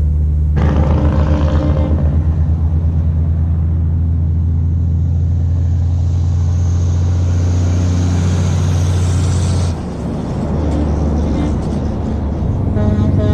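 Heavy truck's diesel engine running with a loud, low rumble that pulses briefly about a second in and drops off about ten seconds in. Music starts near the end.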